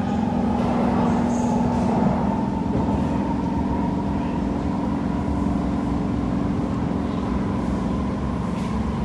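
Interior running noise of a Kawasaki C151 metro train travelling at speed: a steady low hum with a constant higher tone over the rolling rumble of the wheels on the rails.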